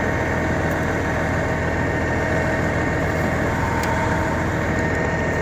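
Tractor engine running steadily, heard from inside the cab, while the round baler sits stopped over a twine-tying fault.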